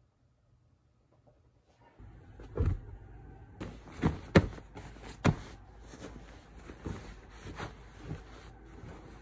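Near silence, then about two seconds in, rustling of bedding with a run of soft knocks and bumps from the phone being handled on the bed. The bumps are loudest around four to five seconds in.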